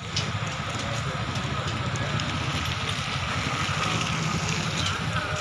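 Steady street traffic noise: a low engine rumble under a broad hiss, with a few faint clicks.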